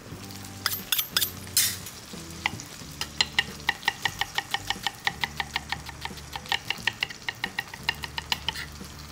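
Chef's knife chopping an onion on a wooden cutting board: a few separate knocks at first, then a quick, even run of about five knocks a second. Under it, a steady frying sizzle from shallots, chillies and curry leaves roasting in oil in the kadai.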